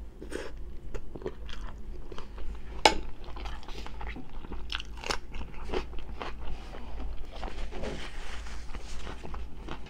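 Close-miked chewing and biting: irregular crisp crunches of a person eating a mouthful of food and biting into a fresh cucumber, the sharpest crunch about three seconds in.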